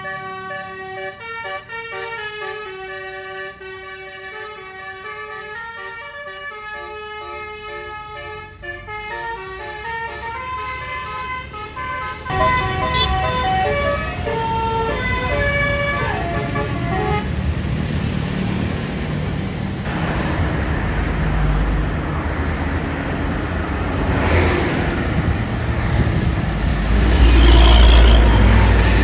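A bus's basuri 'telolet' multi-tone air horn playing a melody of stepped notes. About twelve seconds in, the loud rumble of the bus engine and road noise takes over, with horn notes carrying on a few more seconds. The rumble is loudest near the end as the bus passes close.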